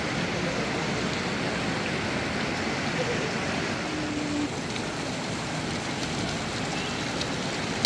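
Steady outdoor city-square background noise, a continuous rushing hiss that drops slightly in level about halfway through.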